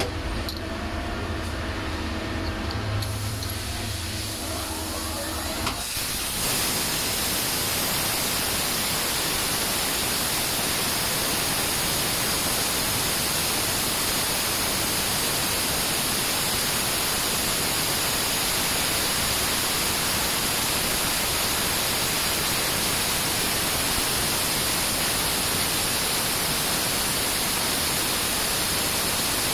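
CNC lathe machining a dart barrel. For the first few seconds there is a machine hum with steady motor tones. About six seconds in, a steady, loud hiss of coolant spraying inside the machine's enclosure starts and carries on through the cutting.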